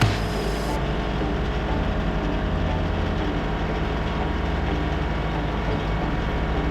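An engine running steadily at a constant speed, with a short knock right at the start.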